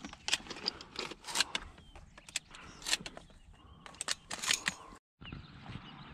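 Irregular small clicks, clinks and rattles of hunting gear being handled in a fabric blind, with a shotgun and boxes of shotshells close at hand. Just after five seconds the sound cuts off abruptly, then gives way to a faint steady outdoor hiss.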